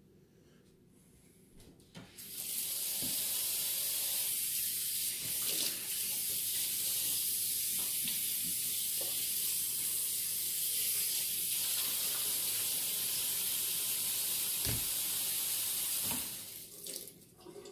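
Kitchen faucet running into a stainless steel sink as a raw whole turkey is rinsed under the stream, with a few light knocks as the bird is handled. The water comes on about two seconds in and shuts off near the end.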